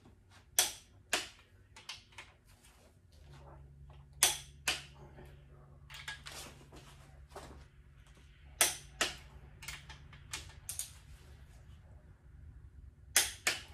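Click-type torque wrench clicking as main bearing cap bolts are pulled to 110 ft-lbs: a dozen or so sharp clicks, often in pairs about half a second apart. A low steady hum runs underneath from a few seconds in until near the end.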